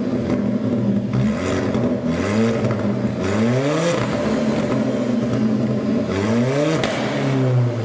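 Car engine revving: a steady engine note that climbs sharply in pitch several times and drops back.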